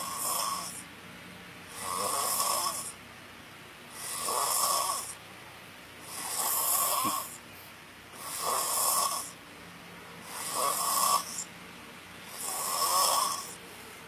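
A young man snoring through his open mouth in a drunken sleep: seven snores, each about a second long, coming about every two seconds.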